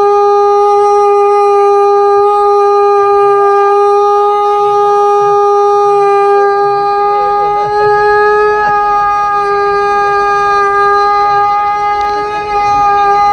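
Conch shell (sankh) blown in one long, steady, held note, rich in overtones, with a slight step up in pitch about two-thirds through and a brief dip in loudness near the end.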